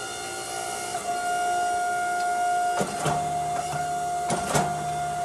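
Hydraulic forging press running with a steady whine from its pump while it squeezes a hot hammer billet. About three seconds in a lower hum joins as the press takes up load, with a few sharp knocks then and again near the end.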